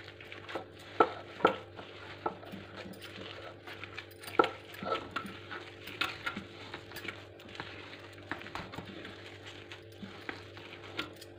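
Thick ground urad dal batter being stirred and mixed in a bowl: a soft stirring with irregular knocks and clinks against the bowl, over a steady low hum.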